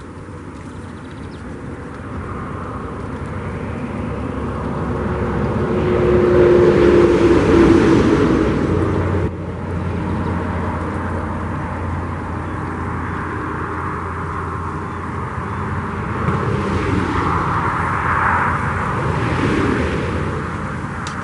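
Road traffic on a highway. One vehicle passes loudly about six to eight seconds in, its engine tone sliding slightly down; the noise drops off abruptly about nine seconds in, and a second vehicle swells past near the end.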